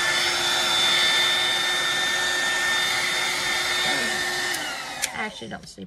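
LDK 1200W electric heat gun running, blowing hot air hard: a steady rush of air with a steady fan whine. About four and a half seconds in the whine falls away and the blowing winds down, with a sharp click just after.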